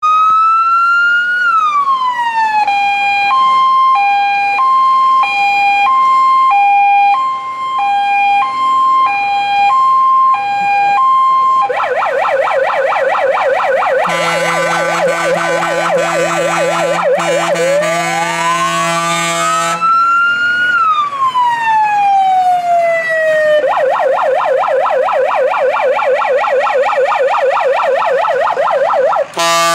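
Mercedes-Benz fire engine's electronic siren cycling through its modes. It opens with a slow rise and fall, then switches between two pitches a little faster than once a second, then gives fast yelping warbles and another long rise and fall before warbling again. A steady low horn tone sounds under it for several seconds midway.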